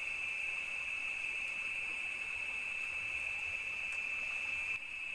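Steady night insect chorus, a continuous high-pitched drone that dips briefly near the end.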